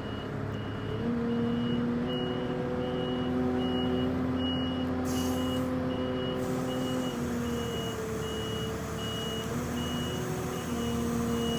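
Forklift backup alarm beeping steadily, a bit under twice a second, over the machine's engine, which revs up about a second in, eases off around seven seconds and revs again near the end.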